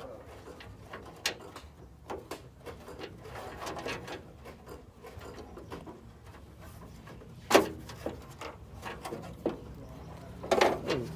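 Scattered clicks and knocks of hard objects being handled, with one sharp knock about seven and a half seconds in and a cluster of knocks near the end.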